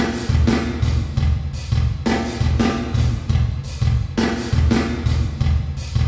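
A drum-kit loop (kick, snare and cymbals) playing a steady beat through the D16 Group Spacerek reverb plugin on its 'Recording Session 5' preset.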